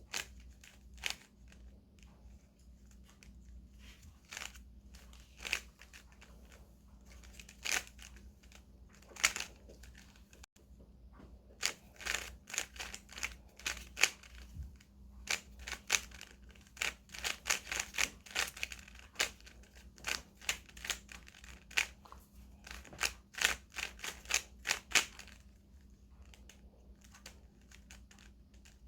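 Loosely tensioned plastic Rubik's cube being turned quickly by hand: rapid clicking and clacking of the layers, in short flurries that come sparsely at first and then close together through the middle.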